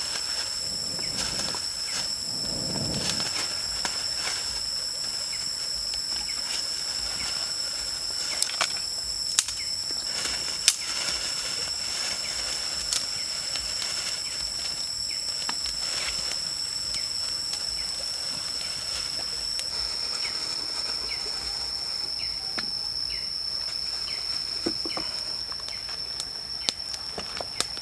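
Small twig-and-dry-leaf campfire being built up and catching, with scattered sharp clicks of twigs snapping and crackling. A steady high-pitched insect drone runs underneath.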